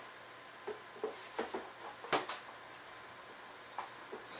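A few short, scattered clicks and knocks of hand tools being handled as a ratchet and socket are picked up.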